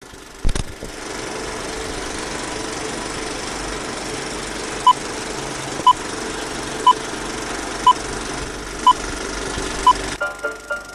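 Old film projector running with a steady whir, starting with a sharp click, while a film-leader countdown gives a short high beep once a second, six times. The whir cuts off near the end and music begins.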